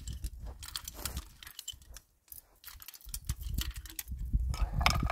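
Chain wire strainer being worked by its lever, its chain links clicking and rattling as it ratchets along to tension barbed fence wire. The clicking stops for about a second partway through, then resumes more densely and louder near the end.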